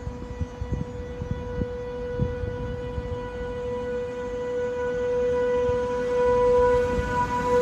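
Approaching electric train: a steady, constant-pitch whine that grows gradually louder, over a low rumble with scattered wheel knocks.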